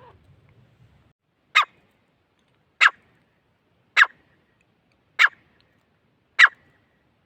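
Gray francolin calling: five short, sharp notes, each falling in pitch, spaced evenly about a second apart.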